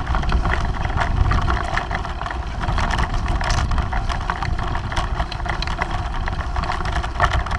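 Bicycle rattling and clattering as it rides over bumpy meadow grass, with heavy wind rumble on the bike-mounted camera's microphone.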